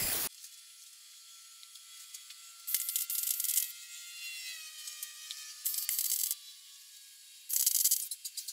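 An angle grinder cuts off about a quarter second in. Then a MIG welder crackles in three short bursts, each a second or less, tack-welding a sheet-steel rust-repair patch panel. A faint whine slowly falls in pitch between the first two bursts.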